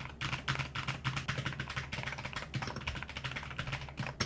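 Fast typing on a DAREU A104 PRO 8K mechanical keyboard in stock form: a dense, continuous run of keystrokes. The keyboard's gasket-mounted PC-plate build is filled with silicone and foam dampening, which is meant to absorb its noise.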